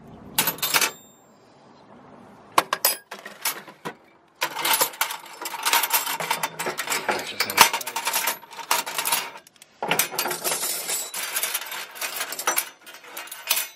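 Loose steel wrenches clinking and clattering against each other as they are handled and shifted in a toolbox drawer: a few single clicks, then two long stretches of dense metallic rattling.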